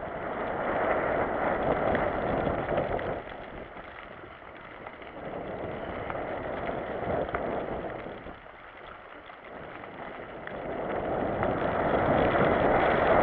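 Mountain bike rolling down a rough, rocky trail: tyre and trail noise with rattle and wind on the microphone, swelling and easing with the riding, loudest near the start and again near the end.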